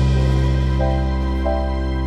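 Slow instrumental background music: held bass notes under sustained keyboard-like tones, with a few higher notes coming in about a second in.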